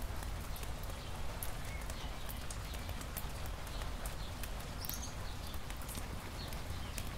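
Rain falling on wet asphalt, many separate drops ticking sharply close to the microphone, over a steady low rumble.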